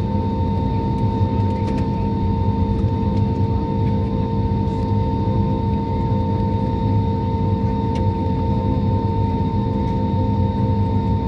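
Jet airliner engines running steadily: a constant whine over a low rumble.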